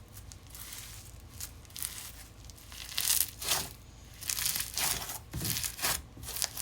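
Hands squishing and stretching a slightly sticky slime, making irregular crackling and squelching noises that grow louder and busier from about three seconds in.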